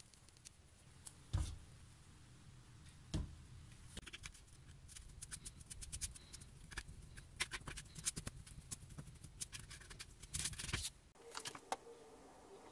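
A small cast-iron table vice being handled on a bench: two dull knocks as it is set down, then a run of quick small metal clicks and rattles as its screw is worked.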